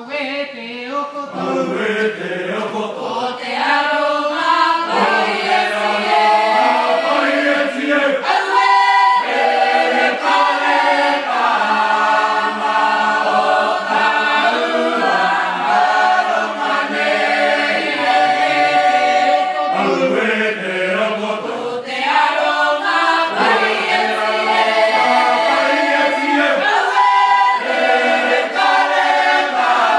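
Choir of young women and men singing a traditional Cook Islands hymn unaccompanied. The voices come in together at once and grow louder over the first few seconds, with two short breaks between phrases.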